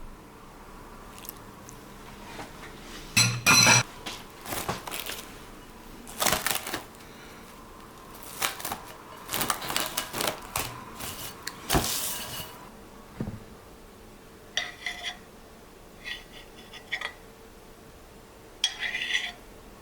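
Kitchen dishes and utensils clinking and knocking together at irregular intervals. Some strikes ring on briefly. The clatter is busiest in the first half, the loudest a pair of clinks about three seconds in, then thins out to a few scattered clinks.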